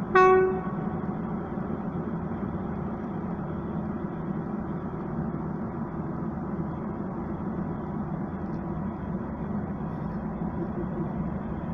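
A short, loud single-tone blast of an electric locomotive's horn about a quarter-second in. It is followed by the steady low hum of light electric locomotives (an ET22 and an EU07) standing with their equipment running, with a faint steady whine.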